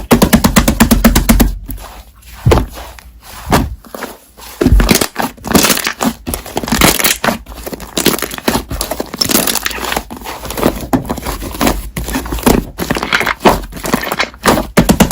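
Slime being squeezed, pressed and stretched by hand, giving dense runs of small crackling, popping clicks with short pauses between handfuls.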